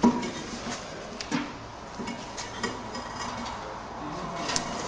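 Ceramic knocks and clicks of an extruded cordierite kiln-car slab being handled and set in place on a drop-test rig: one sharp knock at the start, then a few lighter clicks spread through the rest.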